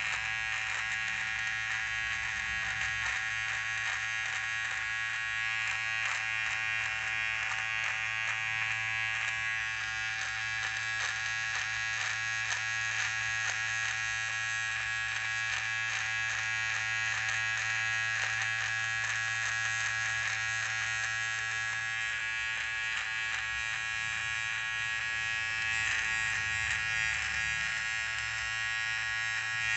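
Rechargeable electric beard trimmer running steadily, a constant buzz, as its blades cut through beard and moustache stubble.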